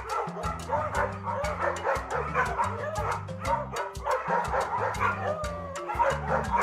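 Many short, high, pitch-bending animal yips and whines, dog-like, over background music with a stepping bass line and sharp percussive clicks.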